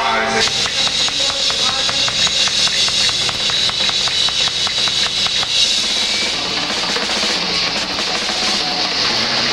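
Live rock band playing without vocals, the drum kit leading with a fast, even run of hits. About six seconds in, the separate hits blur into a steadier, denser wash.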